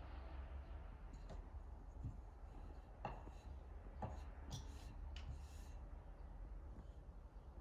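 Quiet outdoor yard ambience: a steady low rumble underneath, with a handful of faint, short clicks and ticks scattered about a second apart.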